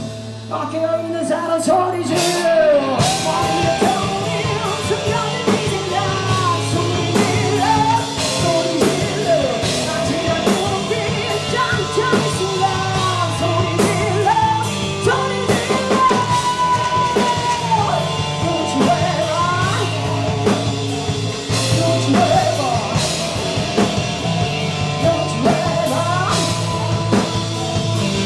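Rock band playing live: electric guitar, bass guitar and drum kit, with lead vocals over them. The low end and drums are briefly missing at the start, and the full band comes back in about two seconds in.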